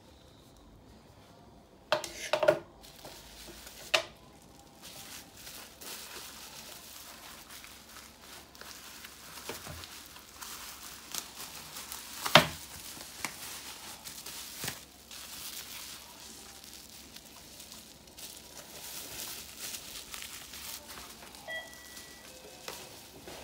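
Plastic bubble wrap rustling and crackling as a bubble-wrap pouch is handled and unwrapped by hand. There are a few sharp knocks near the start and one loud snap about halfway through.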